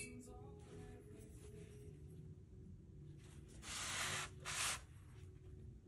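A sheet of watercolour paper being turned and slid across a tabletop, making a papery hiss that comes twice: once for about a second, then briefly, a little past the middle. A sharp click comes right at the start.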